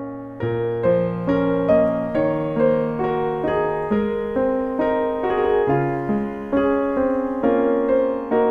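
Background music: a gentle piano melody over sustained chords, notes struck about twice a second and each fading away.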